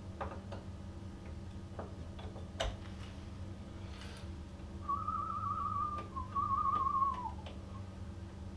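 A man whistling two warbling notes, the second dropping in pitch as it ends, after a few light clicks, the sharpest about two and a half seconds in. A low steady hum runs underneath.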